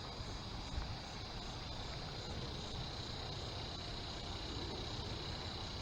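Steady, unbroken high-pitched trill of an evening insect chorus, over a low rumble of outdoor background noise.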